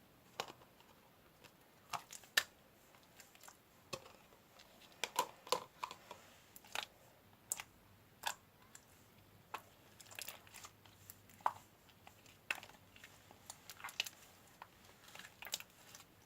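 Slime being squeezed and pressed by hand, giving irregular sharp clicks and small crackling pops.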